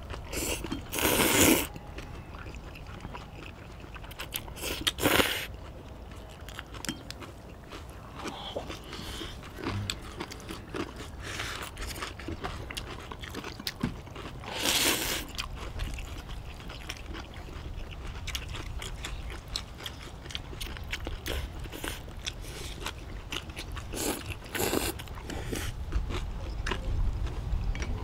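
People eating noodles in broth: several loud slurps of the noodles, the loudest about a second in and about fifteen seconds in, with a pair near the end. Between them come quieter chewing and crunching of fresh cabbage kimchi.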